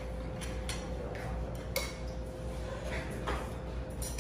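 Scattered light clinks of tableware, bowls and utensils knocking, over a steady low hum.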